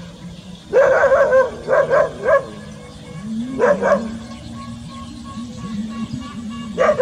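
Dog whining and yipping in short, pitched, wavering cries: a longer one about a second in, two quick ones just after, another near the middle and a last one at the end.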